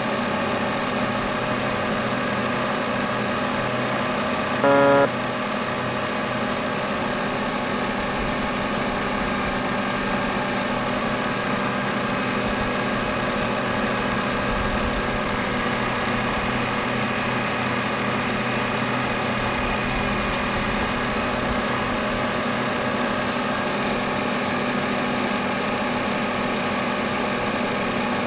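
RC race boat's motor running steadily, with hardly any change in pitch. One short beep about five seconds in.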